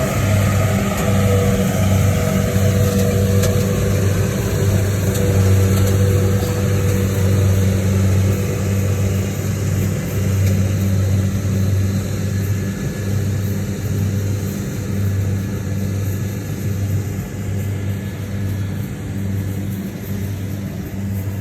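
An engine running steadily at a constant speed, a continuous hum with noise over it that eases slightly in the second half.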